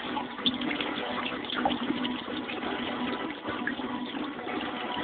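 Water running and splashing as feet are washed, with a couple of sharper splashes in the first two seconds.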